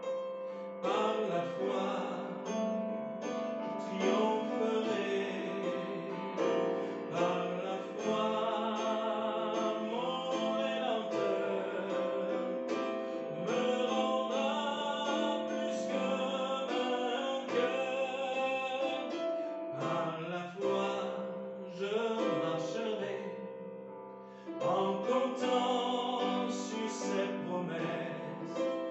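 A man singing a French worship song in a solo voice, accompanying himself on an electronic keyboard with sustained chords. His singing breaks briefly a little over three-quarters of the way through.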